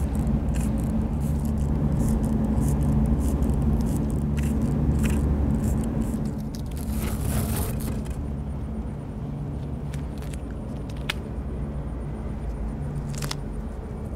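Short hissing spurts of a hand-pumped, non-aerosol trigger paint sprayer over the first half, thinning out after about eight seconds, over a steady low mechanical hum.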